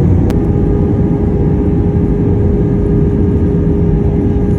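Cabin noise of an Airbus A319 in flight during descent, heard at a window seat over the wing: a loud, steady roar of airflow and engines. A click comes about a third of a second in, followed by a steady hum that holds.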